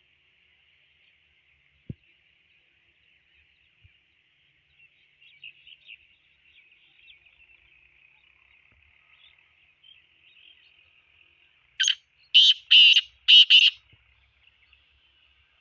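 Male black francolin calling once near the end: a loud, harsh call of about five rasping notes in under two seconds. A faint steady high-pitched buzz lies underneath.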